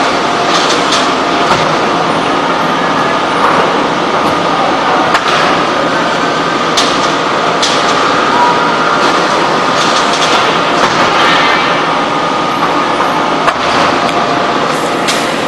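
Hydraulic forging press and forging manipulator working: a loud, steady machine din with short hisses every few seconds.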